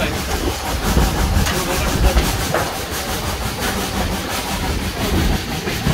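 1927 SACM 040 T steam tank locomotive working uphill, heard from the open carriage just behind it: a steady mix of wheels clattering on the rails and the engine's exhaust.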